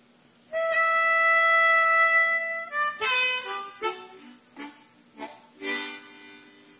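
Harmonica playing a blues opening: one long held note for about two seconds, then a run of short notes and phrases that die away near the end.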